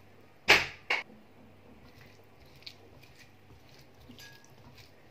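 A hand tossing sliced green peppers in a wet spice marinade in a glass bowl: two sharp, loud noises close together about half a second in, then faint, scattered squishing of the coated peppers.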